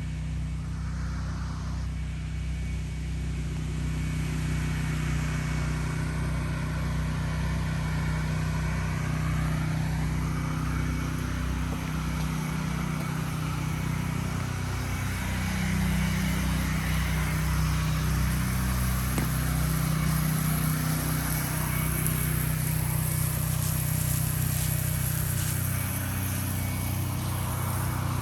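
Gas engine of a pressure washer running steadily, its pitch stepping up slightly about halfway through, under a steady hiss.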